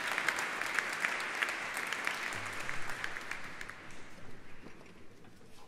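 Audience applauding, the clapping thinning out and fading away over the second half.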